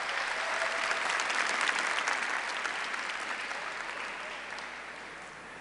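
Audience applauding, swelling over the first two seconds and then fading away toward the end.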